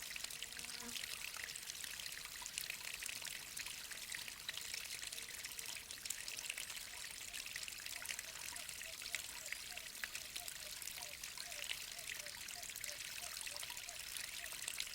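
Steady rush and trickle of falling water from a natural waterfall about 20 m high, splashing down rock.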